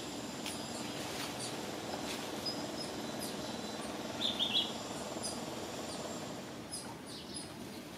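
Short high chirps and squeaks scattered over a steady low background hum, the loudest cluster of chirps about four seconds in.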